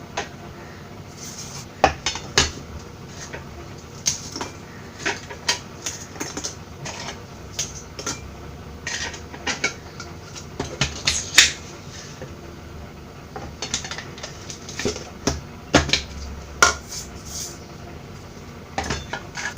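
Kitchen utensils and containers clinking and knocking as they are handled: a string of separate sharp clicks and knocks, with no motor running.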